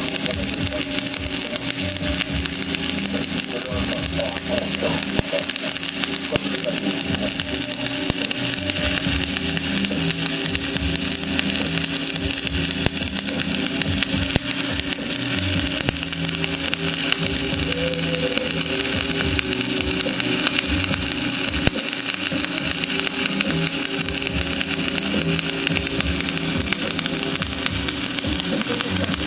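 SMAW (stick) welding arc crackling and frying steadily on steel pipe, unbroken, with a steady engine-like machine hum underneath.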